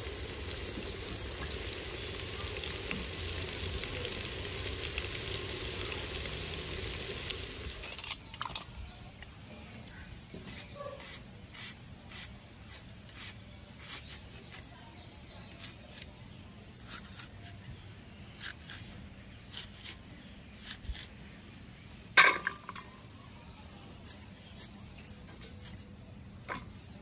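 Bitter gourd slices sizzling in sesame oil in a pot for about the first eight seconds. The sizzle then stops abruptly, and small sharp clicks and taps follow as red onions are peeled with a knife, with one louder knock about 22 seconds in.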